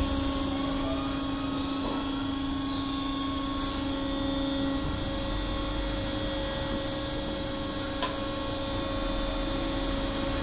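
Walking floor conveyor and feed screw running as they move moist bio-waste: a steady machine hum with several held tones. A single sharp click comes about eight seconds in.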